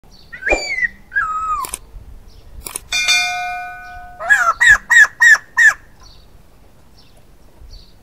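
Male white-crested laughingthrush calling: two slurred, wavering notes in the first two seconds, then a run of five loud, quick notes from about four seconds in. Between them, a click and a ringing bell chime.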